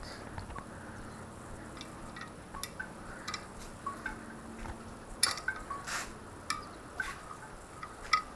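Light metallic clinks and taps of small engine parts and hand tools being handled during a motorcycle top-end teardown. They come irregularly, with the two sharpest about five and six seconds in.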